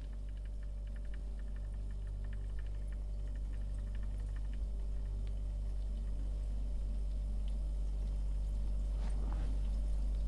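A steady low hum, slowly growing louder, with faint rapid ticking in the first few seconds and a brief rustle about nine seconds in.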